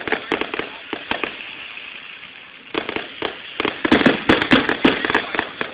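Aerial fireworks going off: a few scattered bangs, then about three seconds in a rapid string of many sharp pops that is loudest near the end.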